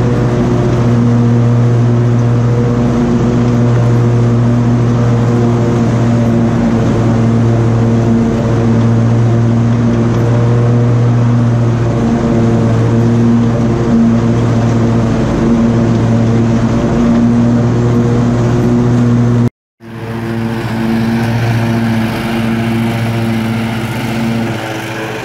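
Cub Cadet RZTL 54-inch zero-turn lawn mower engine running steadily at a constant speed. The sound drops out abruptly for a split second about twenty seconds in, then carries on a little quieter.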